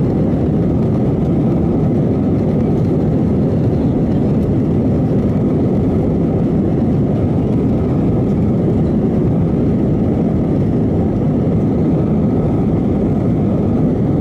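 Steady rumble of an Airbus airliner taxiing, its jet engines and airflow heard from inside the passenger cabin.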